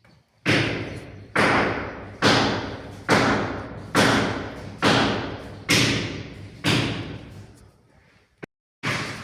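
A steady series of heavy thuds, about one a second, each ringing out briefly.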